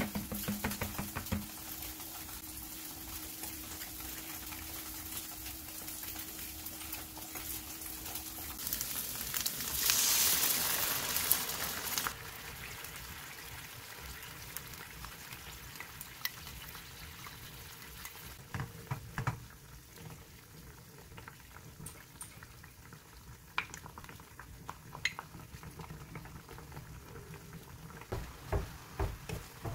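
Tofu slices frying in a pan with a steady light sizzle, and a louder hiss for about two seconds partway through. A wooden spoon clinks against a glass bowl at the start as seasoning sauce is stirred, and knocks now and then against the pan later as the sauce is spread over the tofu.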